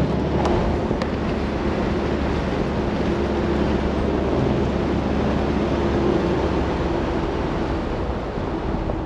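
Cabin noise inside a lifted VW Kombi cruising at highway speed, about 110 km/h: a steady engine drone under road and wind noise.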